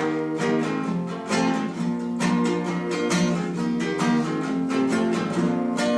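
Strummed acoustic guitar playing a steady, rhythmic chord accompaniment as the instrumental introduction to a children's song.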